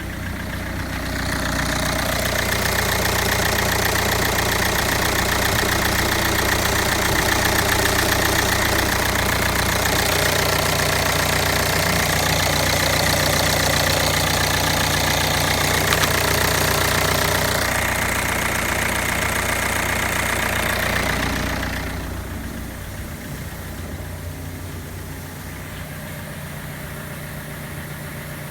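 Ford Focus II 2.0 TDCi (G6D) four-cylinder diesel engine running. About two seconds in it rises from idle to a higher steady speed and holds there for some twenty seconds. Near the end it drops back to idle.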